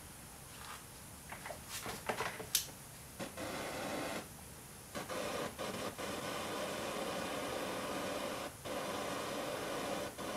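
Handheld butane torch burning with a steady rushing hiss that starts about three seconds in and cuts out briefly twice. A few short squeaks and clicks come before it.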